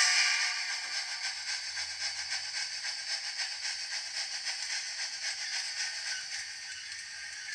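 Large-scale model steam locomotive running along the track: a steady rattling hiss, loudest at the start and easing a little after.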